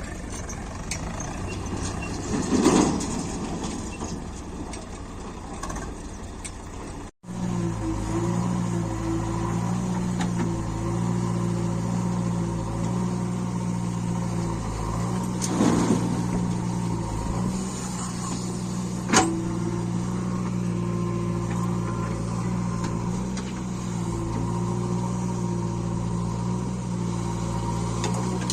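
Heavy diesel machinery engine running steadily at a constant speed, with a few sharp knocks. The sound drops out for an instant about a quarter of the way in.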